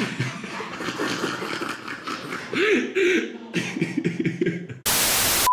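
Muffled, breathy human voice sounds with no clear words, then near the end a sudden burst of loud static hiss lasting about half a second.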